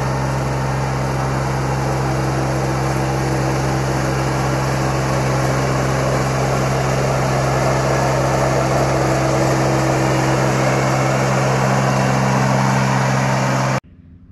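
Gianni Ferrari PG280DW ride-on mower's engine running steadily with a constant drone. The sound cuts off abruptly near the end.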